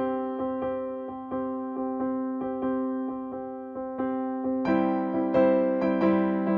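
Background instrumental music: notes struck in a steady pulse over held chords, getting louder and fuller about two-thirds of the way through.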